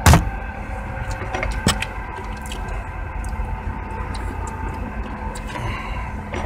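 Steady idling hum of a vehicle heard from inside the cabin, with a sharp knock right at the start and a few light clicks.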